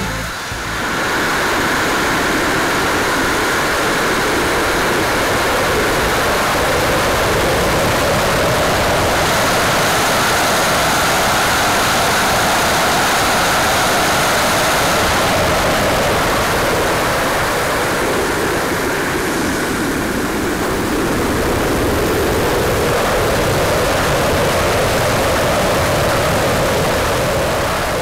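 RC model jet in flight heard from its onboard camera: a steady rush of airflow and engine noise, with the pitch drifting slowly up and down as the jet manoeuvres.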